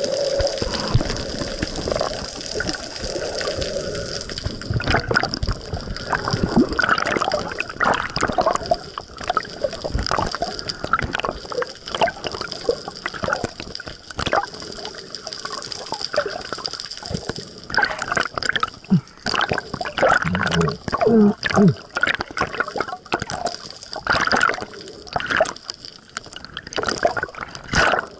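Water sloshing and bubbling against an underwater camera just below the surface, with irregular splashes and crackling bubbles over a steady thin high hiss.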